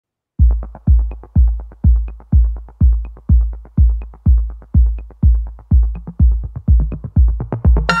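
Background music: after a brief silence, a steady kick drum beat starts about half a second in, about two beats a second, with a faint higher tick on every other beat.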